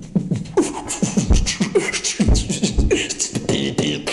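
Heartbeat sound effect: a series of low thumps with clicking, standing for a heart heard through a toy stethoscope during a check-up.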